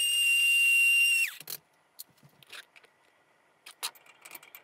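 Electric blade coffee grinder running with a steady high whine as it grinds cacao nibs, cutting off about a second in. A few light clicks of a spoon against a glass jar follow near the end.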